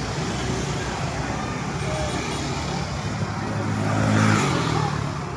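Bus engine running, its low note growing louder about four seconds in and then fading away.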